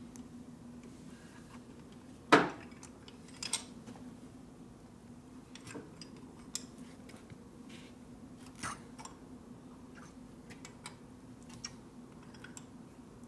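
Scattered metallic clinks and knocks of a wrench working on motorcycle brake parts while the brake cups are pressed back, with one louder clank about two seconds in. A steady low hum runs underneath.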